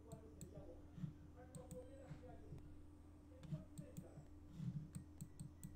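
Faint computer mouse clicks, a dozen or so short clicks scattered irregularly, over a steady low electrical hum.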